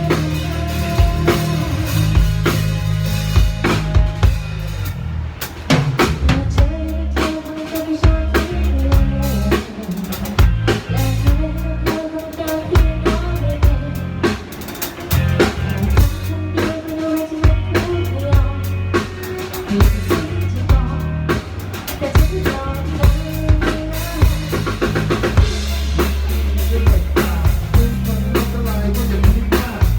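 Instrumental break of a medium-tempo Thai pop song: a drum kit with bass drum and snare keeps a steady beat under a bass line and a lead melody, with no singing.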